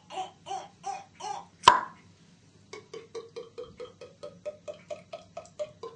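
A man's mouth-made imitation of opening and pouring a bottle of wine. A run of short squeaky vocal pulses leads to a single sharp pop, like a cork coming out, just under two seconds in. After a brief pause comes a rapid glugging, about five glugs a second, rising slightly in pitch like a glass being filled.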